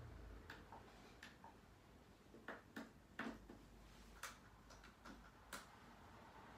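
Roland D-50 synthesizer's front-panel buttons and joystick clicking as they are pressed, about a dozen short, irregular clicks against near silence.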